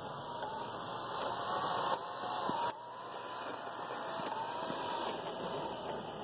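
Large-scale toy circus train running on its track: the electric motor's whirr and the wheels clicking over the rail joints. It grows louder for the first few seconds, drops suddenly about two and a half seconds in, then builds again as the cars pass close by.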